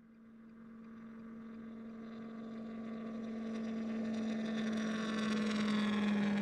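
A steady low hum, fading in from silence and growing louder, with a hiss building over it toward the end.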